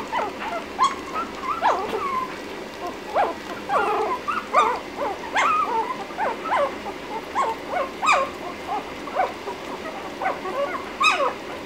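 A litter of young Lhasa Apso puppies whimpering and squeaking, short high calls overlapping several times a second.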